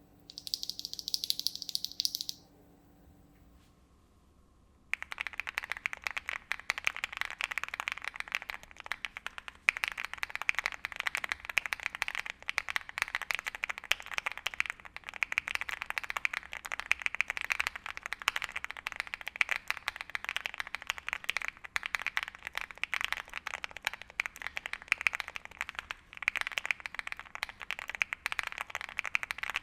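Fast, continuous typing on a Monka Alice Pro mechanical keyboard with factory-lubricated BSUN Bubble linear switches, a polypropylene plate and stock stabilisers: dense, irregular key clacks. The typing starts about five seconds in, after a short hiss near the start and a brief lull.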